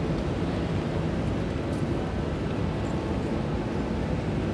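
Steady low rush of wind buffeting the microphone over the hiss of rain on a wet city street.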